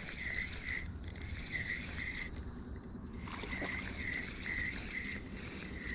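Spinning reel being cranked to reel in a hooked yellow bass: a faint, even whir that pulses with each turn of the handle, about two turns a second, stopping for about a second partway through before the reeling resumes.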